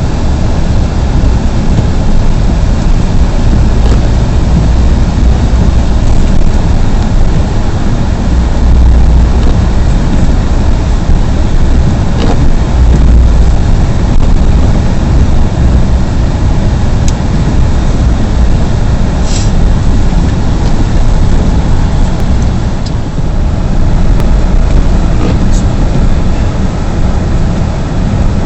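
Vehicle driving, a loud steady low rumble of engine and road noise with no let-up.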